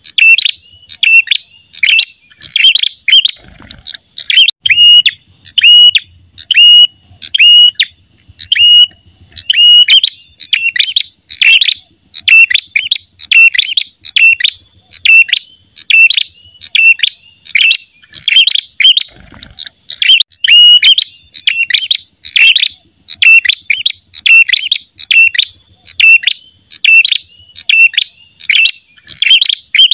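Ashy tailorbird (prenjak kepala merah) giving the male's agitated fighting call: loud, sharp, high chirps repeated about twice a second.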